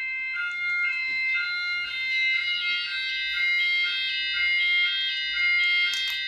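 Fire alarm sounders of a wireless EMS FireCell home fire alarm system going off together, starting abruptly: several overlapping tones, some alternating between two pitches about twice a second. The system is in full fire alarm after a smoke-tested detector tripped.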